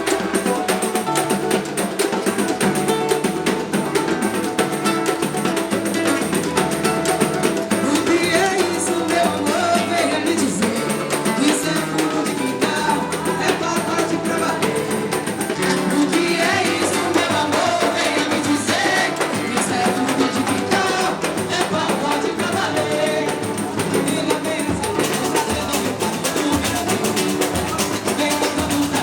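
Samba band playing, with a steady beat of hand percussion including a tambourine-like jingle, and sung vocals over it.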